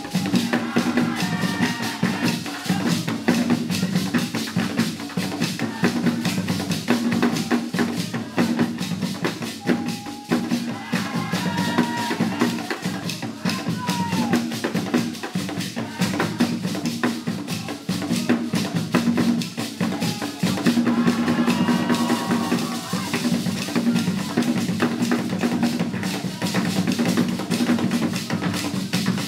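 Traditional dance drumming: several drums played together in a fast, dense, steady rhythm, with voices rising above it now and then.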